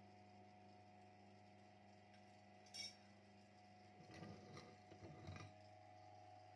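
Very quiet, with a faint steady hum; a single light metallic clink about three seconds in, then a second and a half of soft knocks and rustling as a drilled metal strip is handled with gloved hands.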